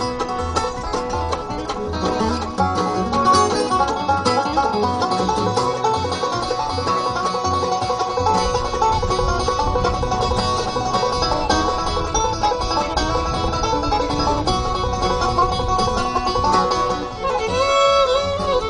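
A bluegrass string band plays an instrumental break on banjo, fiddle, mandolin and acoustic guitar over a steady pulsing bass line, with the banjo's picking to the fore. Near the end, sliding fiddle notes come in.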